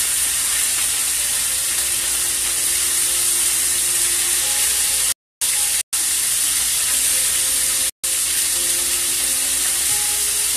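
Boneless butterfly pork chops sizzling as they sear in hot grease in a frying pan: a steady, even hiss. The sound cuts out for a moment twice, about halfway through and again near the end.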